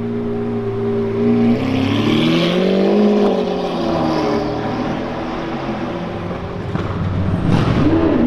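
A sports car engine holds a steady note. About two seconds in it climbs in pitch and falls back again, and there is another short rise and fall near the end.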